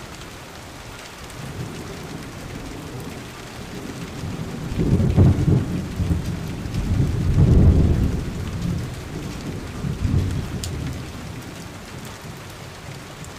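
Steady rain falling, with a long roll of thunder that swells in the middle, peaks twice, and rumbles away to nothing.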